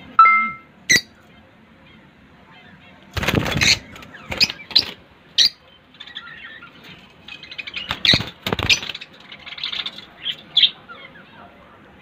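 Peach-faced lovebirds chirping, with a short loud call at the start and several brief, loud bursts of fluttering and rustling close to the microphone, the longest about three seconds in.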